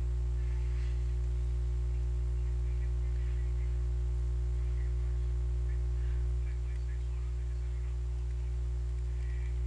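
Steady low electrical mains hum with its overtones, slightly quieter from a little past six seconds in.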